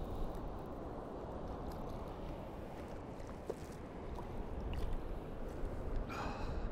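Steady rushing noise of moving water, with wind on the microphone. A brief pitched call with several overtones sounds near the end.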